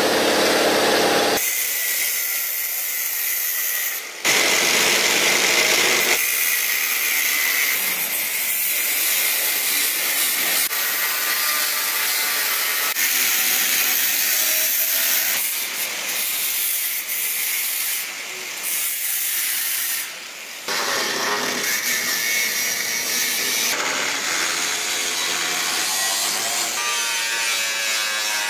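Angle grinder with a cutting disc cutting through the sheet steel of a van's body and floor. It runs in a series of short stretches that change abruptly several times, its sound strongest in the high range.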